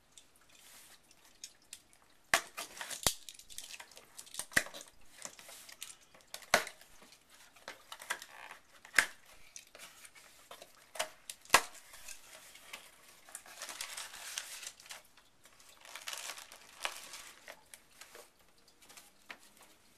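Hands opening a cardboard mailing box: a string of sharp snaps and scrapes as the flaps are pulled open, then longer stretches of plastic packing crinkling.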